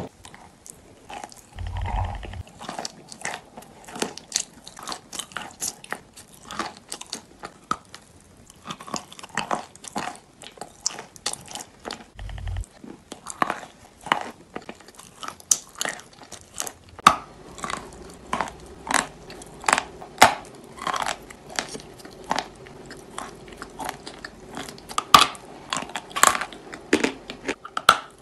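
Close-up biting and chewing of small pieces of chalk coated in wet paste: a quick, irregular run of crisp crunches with wet mouth sounds.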